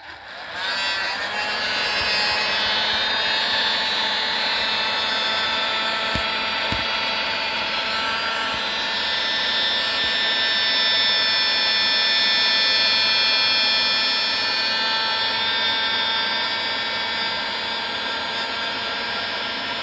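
Hair dryer switched on and running steadily: a whining fan with several steady tones over rushing air, coming up to speed within the first second.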